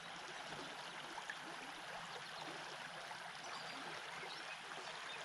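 Creek water running steadily over a riffle, an even rushing and babbling.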